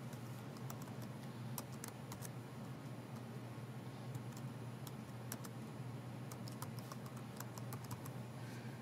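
Typing on a computer keyboard: faint keystrokes at an uneven pace, over a steady low hum.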